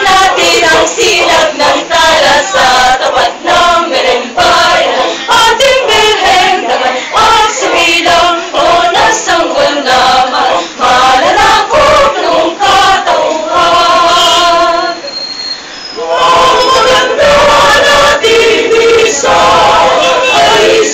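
A group of men and women singing together loudly in chorus, with a brief break about fifteen seconds in before they start again.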